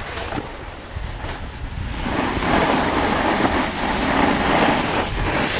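A snowboard sliding and scraping down a firm, thinly covered slope, with wind rushing over the microphone. It grows louder about two seconds in as the board picks up speed.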